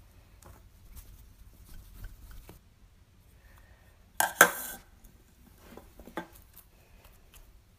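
A small pump spray bottle misting a block of slime: a short hiss in two quick pumps about four seconds in, the loudest sound here. Before and after it come faint light clicks and taps from the slime being handled.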